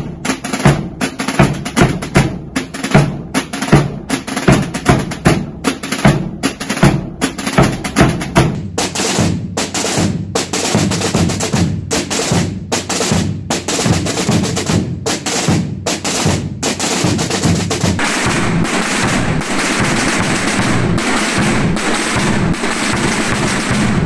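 Holy Week drumming of the Bajo Aragón tradition, large bombos and snare-type tambores played together. For the first several seconds heavy strokes fall about twice a second in a steady march beat; later the playing turns denser, and near the end it becomes a thick, continuous drum roll.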